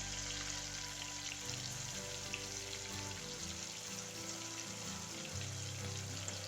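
Chicken pieces frying in hot oil: a steady sizzle with small crackles and pops, under soft background music with long held notes.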